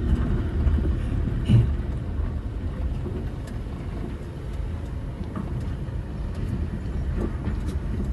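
Car running slowly over a rough, unpaved street, heard from inside the cabin: a steady low rumble of engine and tyres, with one sharp thump about one and a half seconds in.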